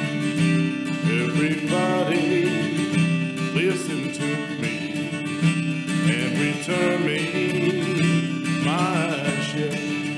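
Steel-string jumbo acoustic guitar strummed in a steady rhythm, the chords ringing on.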